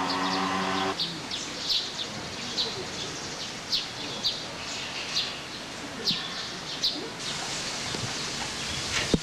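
Small birds giving short, high chirps, repeated one or two times a second. A steady pitched drone, like a motor, cuts off about a second in.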